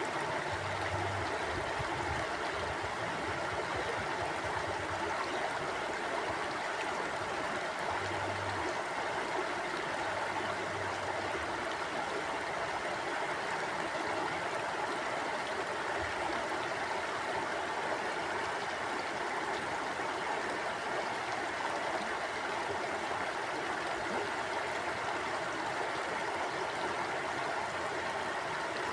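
River water flowing steadily, an even rushing and babbling that stays constant.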